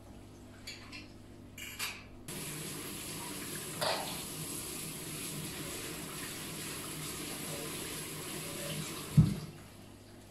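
Kitchen tap running into a stainless steel sink while a plastic cutting board is rinsed under it. The water comes on about two seconds in after a few light clicks, with a knock soon after. It stops near the end with a loud thump.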